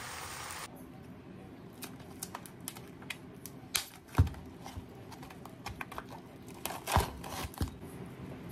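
A pan of chives and pork sizzling, cut off suddenly under a second in. Then a plastic food packet crinkling and clicking as a pack of imitation crab sticks is opened and handled, with two louder dull knocks about four and seven seconds in.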